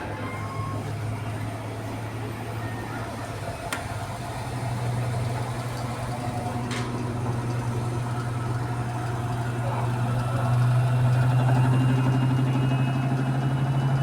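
Electrolux 15 kg commercial washing machine in its final spin, with an unbalanced load: a steady motor-and-drum hum that rises slightly in pitch and gets louder as the drum speeds up. A couple of sharp clicks sound about four and seven seconds in.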